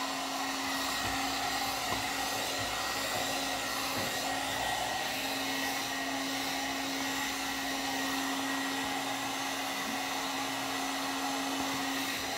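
One-step hot-air dryer brush running steadily on its higher setting, an even rush of blown air over a constant motor hum.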